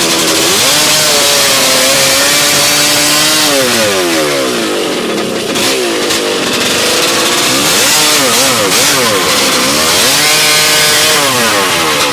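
Chainsaw driven by a Honda CR500 500cc single-cylinder two-stroke engine, run at high revs while cutting through wood. The revs climb about half a second in, sag and waver under load around the middle, then climb again and fall off near the end.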